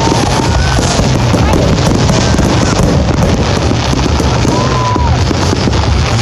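Fireworks going off in a dense, continuous barrage of crackles over a steady low rumble, with a few short whistling tones.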